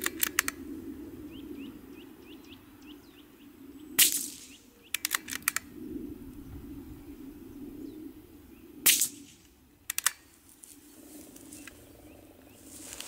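Suppressed Anschütz .22 LR rifle firing two shots, about four and nine seconds in. Each shot is followed by a quick run of metallic clicks as the bolt is worked. A bird chirps a few times early on.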